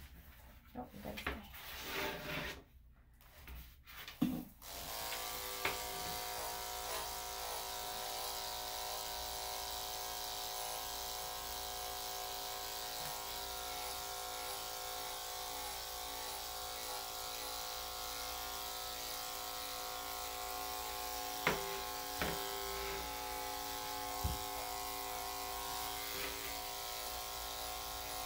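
Corded electric dog clipper fitted with a #5 blade, switched on about four and a half seconds in and then running with a steady hum as it trims the fur on a dog's inner leg. A few short clicks come near the end.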